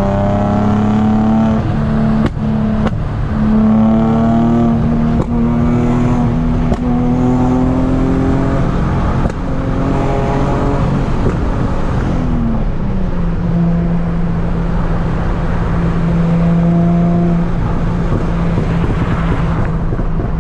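Nissan 350Z's 3.5-litre V6 heard from inside the cabin, revving up in a few rising pulls with short breaks between them. About twelve seconds in it drops in pitch and settles into a steady cruise, with road and wind noise underneath.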